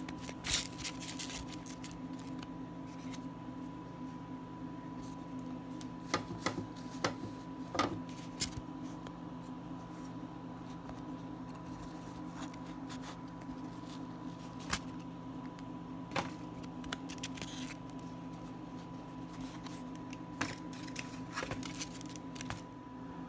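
Shredded iceberg lettuce handled by fingers in a foam tray: scattered soft crackles and rustles, in short clusters, over a steady low hum.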